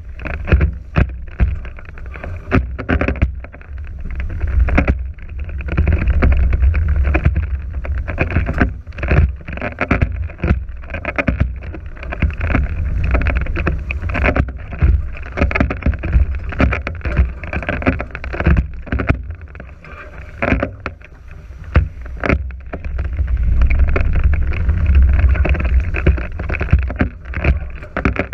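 Wind buffeting the microphone and water rushing and splashing along the hulls of a NACRA 5.0 catamaran under sail, with frequent sharp knocks throughout.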